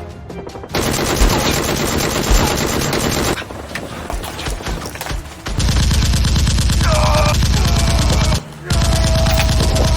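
Rapid automatic gunfire, a fast even rattle of shots in long bursts, easing off in the middle and breaking off briefly near the end.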